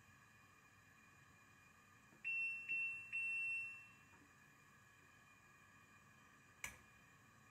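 Three short electronic beeps from the hob's controls as its knob is pressed and turned, each fading away, a little over two seconds in. A single sharp click follows near the end.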